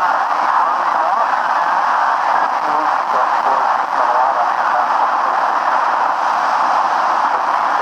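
Steady hiss of static from an amateur radio receiver's speaker, a narrow band of noise with no readable signal.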